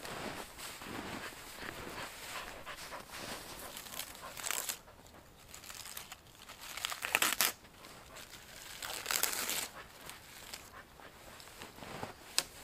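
Footsteps crunching in snow, uneven and bunched, with nylon clothing and backpack rustling, and a single sharp click near the end.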